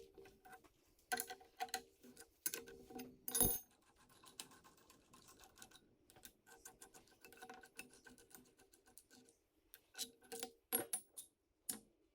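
Faint, irregular metallic clinks, taps and knocks, some with a short ring, from metal parts and tools being handled. One knock stands out about three and a half seconds in, and a quick run of sharp clicks comes near the end.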